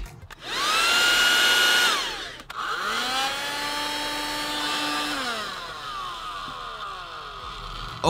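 Two 12 V handheld car vacuum cleaners, a 60 W and a 120 W, switched on one after the other. The first runs for about two seconds with a high, louder whine and then winds down quickly. After a click the second starts, running lower-pitched and quieter for about three seconds, then its motor winds down slowly, the pitch falling over a couple of seconds.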